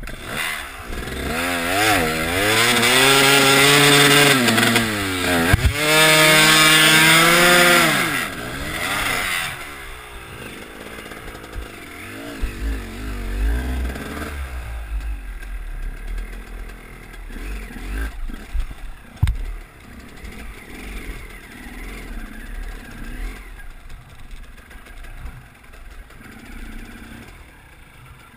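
Dirt bike engine revved hard at full throttle on a steep dirt hill climb, its pitch rising and falling in several surges. After about ten seconds it drops to a lower, quieter throttle as the bike rides on over the top, with a single knock near the twentieth second.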